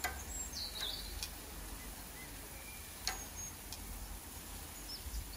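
Sausages and burgers sizzling on a gas barbecue grill, with a few sharp clicks of metal tongs against the grate as they are turned. Birds chirp a few short calls.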